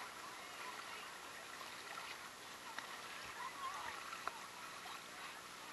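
Shallow freshwater creek flowing over sand with a steady rush. Bare feet wade through it with small splashes, the sharpest a little after four seconds in.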